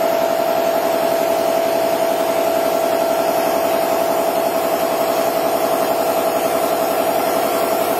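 Air compressor running steadily with a fast, even pulsing and a constant hum, building air pressure for a mill's pneumatic power drawbar after the air supply was switched back on.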